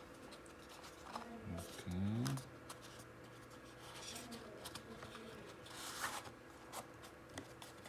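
Faint handling noises: scattered light clicks and a short rustle about six seconds in. A brief voiced sound comes about two seconds in.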